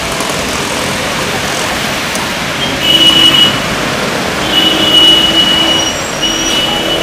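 Steady hiss of heavy rain and tyres on a flooded road. A vehicle horn sounds over it three times: a short honk about three seconds in, then two longer blasts, the last one running on past the end.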